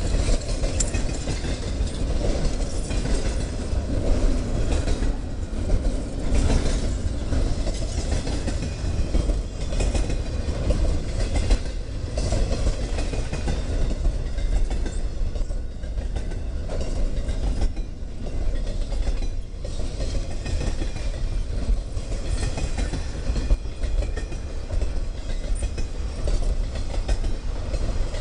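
Freight train passing close by, railcars rolling steadily with a heavy low rumble and a continual clickety-clack of wheels over rail joints.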